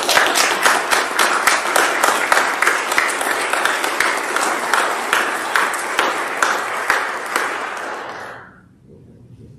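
Congregation applauding with dense clapping that fades out about eight and a half seconds in.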